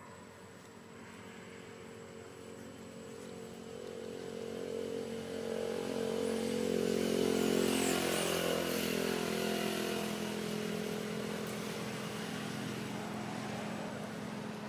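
A motor vehicle's engine passing by: it grows steadily louder to a peak about eight seconds in, its pitch sliding as it goes past, then fades slowly.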